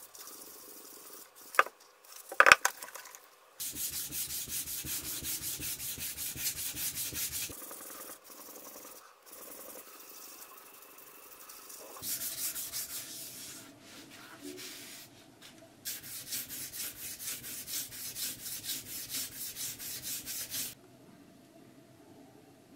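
Two sharp clicks, then a knife blade made from underwear fabric rubbed back and forth on a wet whetstone in rhythmic grinding strokes. The strokes come in two long runs with a pause between them, then stop.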